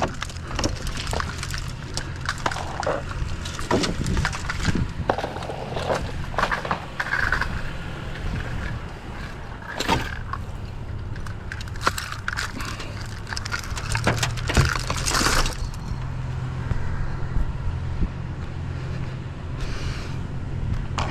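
Pieces of scrap metal and car parts being handled, with irregular knocks, clanks and rattles, over a pickup truck's engine idling steadily.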